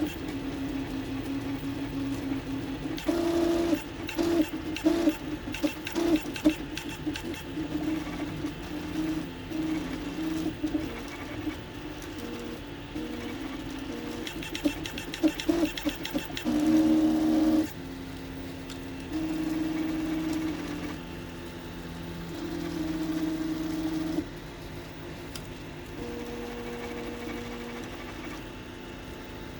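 NEMA 17 stepper motors of a 3D printer driven by TMC2209 drivers in stealthChop, humming in steady tones that jump to a new pitch with each move. For the first half the hum is rough and stuttering, then it settles into smoother held tones. This is the resonance noise the uploader hears at the 60 mm/s base speed, which goes quiet at slower or faster speeds.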